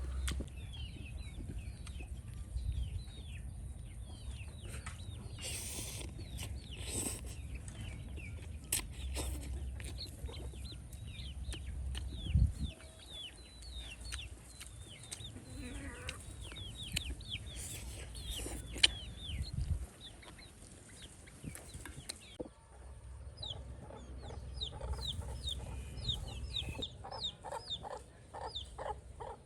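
Chickens clucking, with many short high chirps repeating throughout, over a low rumble and occasional clicks and knocks.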